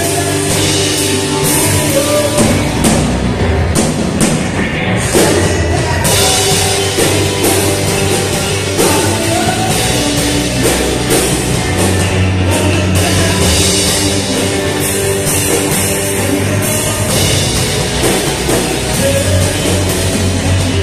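A live band playing loud, rock-style gospel music: drum kit, electric guitar and keyboard, with a man singing at the microphone.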